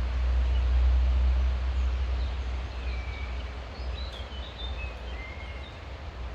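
Wind rumbling on the microphone, strongest in the first couple of seconds, with a few short bird chirps about halfway through.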